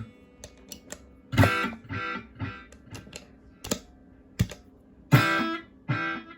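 Guitar chords played through a NUX Time Force delay pedal. Twice a chord is struck and followed by two or three fainter repeats about half a second apart, a sign that the delay effect is working. Short sharp clicks fall between the chords.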